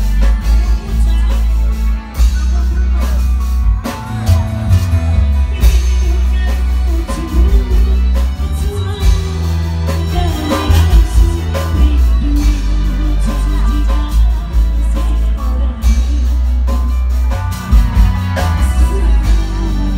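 Live Indramayu reog band music played loud through a sound system: a woman singing over keyboard with heavy sustained bass and drums.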